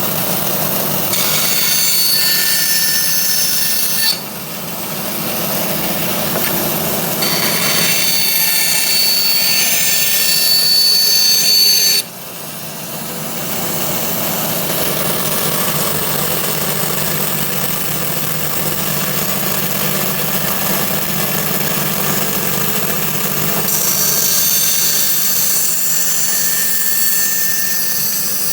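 Tannewitz 24-inch bandsaw running on its 2-horsepower direct-drive motor: a steady hum with high-pitched tones above it. The sound drops suddenly about four seconds in and again about twelve seconds in, then builds back up.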